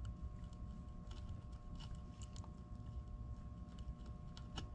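Faint small clicks and scrapes as a soldering iron tip works softened plastic in a black plastic switch panel, heard over a steady low hum.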